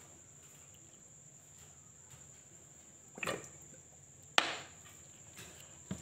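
Two knocks from the plastic crate and feeding bottle being handled, a softer one about three seconds in and a sharp, louder one about a second later, over a faint steady high whine.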